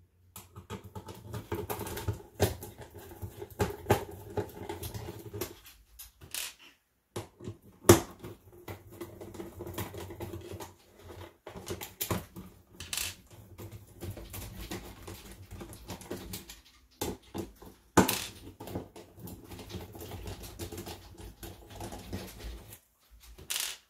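A screwdriver backing the case screws out of an Apple Disk II floppy drive's metal cover: scraping and grinding while a screw turns, broken by sharp clicks and knocks as the driver bit seats and the tools are handled. The loudest knocks come about 8 and 18 seconds in.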